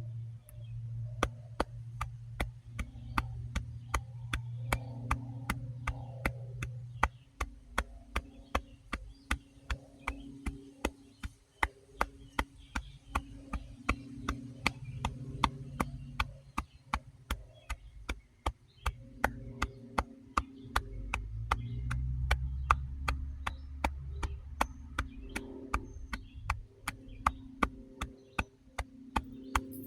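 Steady ticking, about two ticks a second, over low held tones that shift a couple of times: a sparse background music track.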